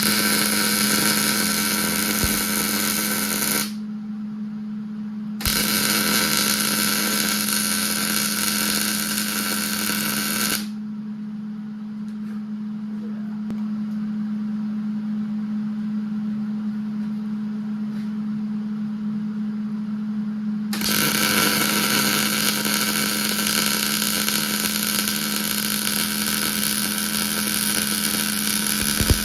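Gas-shielded MIG welding arc from a Hobart 210 welder laying beads on steel, running in three stretches of about four, five and eight seconds with pauses between. A steady low hum runs underneath throughout.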